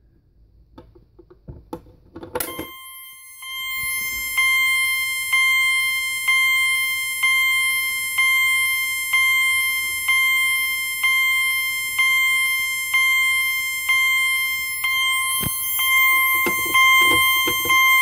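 Older Cerberus Pyrotronics fire alarm horn strobe, set to a chime tone, sounding a steady high note struck about once a second, each strike fading before the next. It is a 24-volt horn run on only 12 volts, so it isn't very loud. It starts about two seconds in, right after a click as the pull station is pulled, and there is handling and key rattling near the end.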